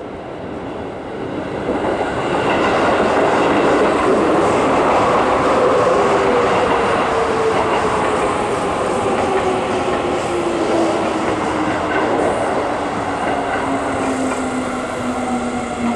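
Electric commuter train pulling into a station platform and slowing, its running noise building over the first two seconds, with wheels clattering and a whine that falls steadily in pitch as it brakes.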